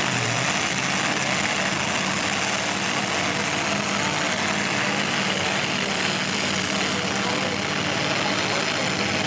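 Super-modified four-wheel-drive pulling truck's engine idling steadily at the line, with no revving.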